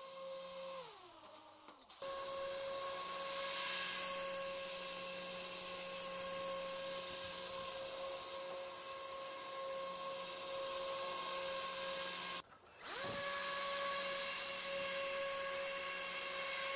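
3D-printed model hovercraft's motor-driven fans, whining steadily at a high pitch. About a second in the whine falls in pitch as the motors slow, then comes back abruptly at full pitch. After a brief gap about three-quarters through, it rises quickly back up to speed.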